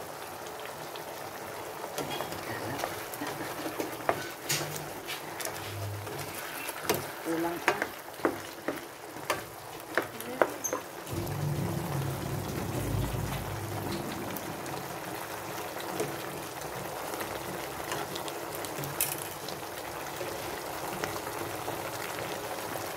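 Chicken adobo with potatoes simmering and sizzling in its soy-vinegar sauce in a non-stick pan, a steady bubbling hiss. A spoon clicks and knocks against the pan as it stirs, mostly in the first half.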